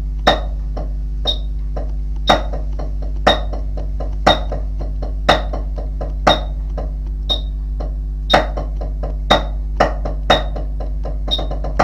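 Snare drum played with sticks in a slow rudimental solo at tempo 60: a strong stroke about once a second with lighter strokes between. A steady low hum runs underneath.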